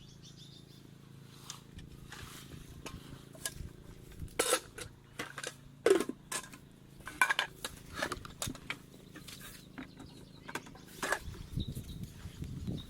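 Scattered light clicks, clinks and knocks, like objects being handled, over a faint steady low hum.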